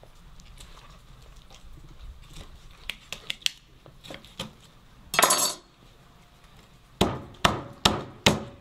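A knife cutting up a raw rabbit carcass on a cutting board: light knocks and clicks, a short scraping rush about five seconds in, then four hard chops in quick succession near the end.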